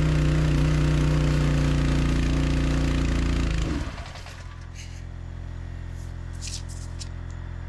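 Small gasoline engine running steadily, loud with a hiss over it. About three and a half seconds in, the hiss stops and the level drops, and the engine keeps running more quietly, with a few light clicks.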